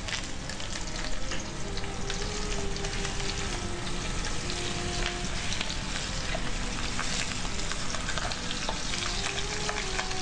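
Floured chicken pieces sizzling and crackling in hot oil and lard as they are laid into the pan. A dense, steady crackle that swells in the first second, then holds.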